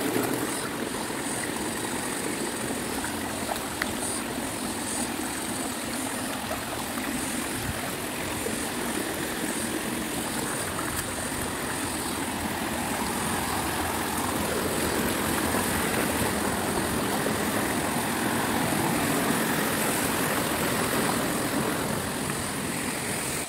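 Stream water flowing, a continuous rushing wash, a little louder in the second half.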